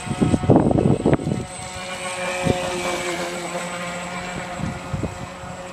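Electric RC model speedboat's outrunner motor and propeller running at speed, a steady whine that swells about two and a half seconds in and then slowly fades as the boat moves off.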